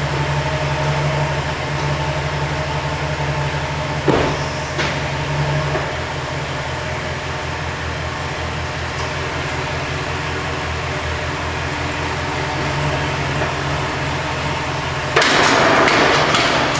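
Chevrolet Silverado 2500HD pickup engine running steadily at idle. A single sharp knock comes about four seconds in, and a loud burst of rushing noise lasts about a second and a half near the end.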